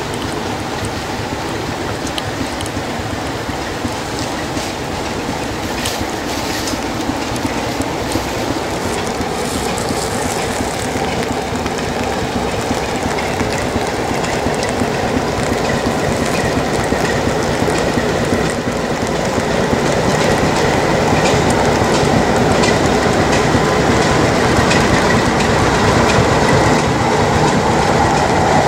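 Class 33 diesel locomotive with its Sulzer eight-cylinder engine hauling a passenger train into a station. It grows steadily louder as it draws near, with a faint steady squeal from the wheels or brakes in the second half.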